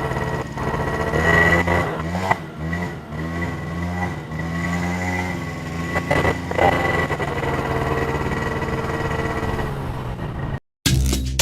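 Motorcycle engine running as it is ridden slowly, its pitch shifting a little now and then; it cuts off suddenly near the end.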